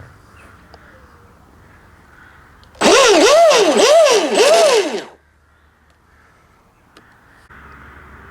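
RC boat's brushless 4082 1600 kV motor and drivetrain revved by the throttle out of the water: a loud whine that rises and falls in pitch about four times over two seconds, then cuts off suddenly.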